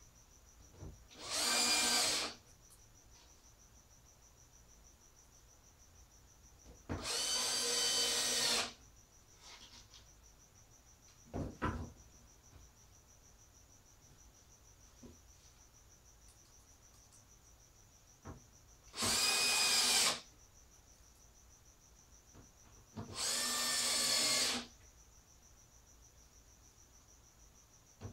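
Cordless drill-driver driving screws into metal hinge hardware on a plywood panel, running in four short bursts of a second or two each. A single knock comes between the second and third bursts.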